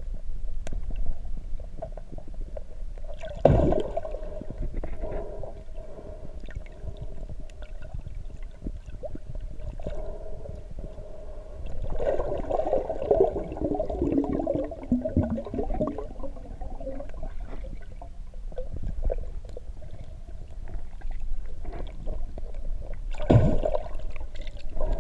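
Muffled underwater sound through a camera's waterproof housing: a steady low rumble of moving water, with a stretch of bubbling and gurgling about halfway through. Two sharp thumps stand out, one a few seconds in and one near the end.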